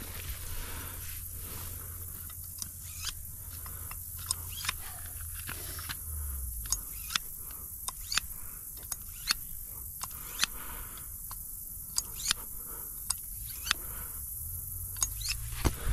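Scattered sharp clicks and taps, roughly one or two a second, over a steady high hiss and a low rumble.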